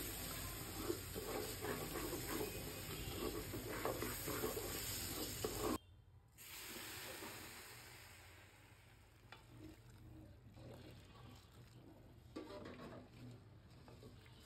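Wooden spatula stirring rice grains as they fry in an aluminium pot: a dense sizzle with gritty scraping. It cuts off abruptly about six seconds in, and after that the stirring is much fainter, with a few small scrapes.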